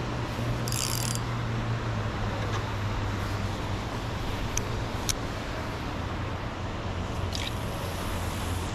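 Steady low drone of boat motors running on the river over an even wash of background noise, with a few brief clicks partway through.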